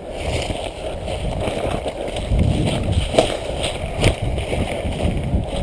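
Rustling and scraping of brush and gear against a body-worn microphone as a player pushes through thorny undergrowth, with two sharp clicks a little under a second apart near the middle.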